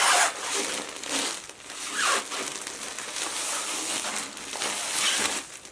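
Packaging crinkling and rustling as it is handled and opened, loudest at the start, again about two seconds in, and near the end.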